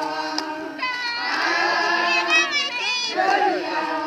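A crowd of women singing together, their voices overlapping, with long held, wavering high notes about a second in.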